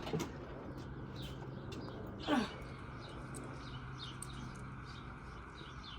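Birds chirping repeatedly in short high notes over a steady low hum. About two seconds in there is one louder sound that slides down in pitch.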